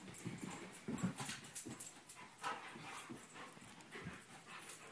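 Two dogs, a Basset/Lab mix and a Shiloh Shepherd, play-wrestling on carpet: scuffling and panting in short, irregular bursts.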